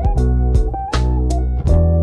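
Background music: a guitar-led track with bass and a steady drum beat.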